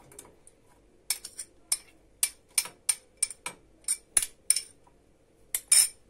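Frozen butter pieces and a metal utensil clinking against a small stainless steel cezve as the butter is put into it. About fifteen sharp clinks come at uneven intervals, the loudest near the end.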